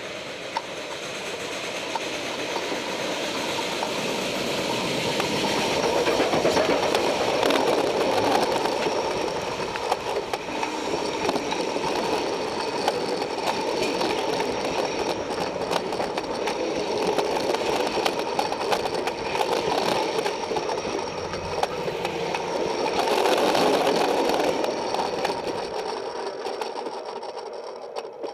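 Steam locomotive running along the track. Its sound swells twice and fades near the end, with many small rail clicks through it.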